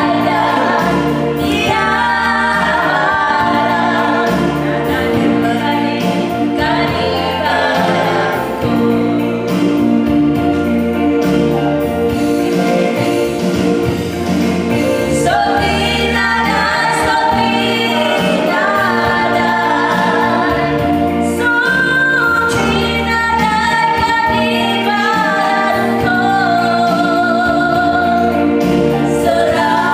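Two women singing a gospel song together, accompanied by an electronic keyboard playing chords over a repeating bass line.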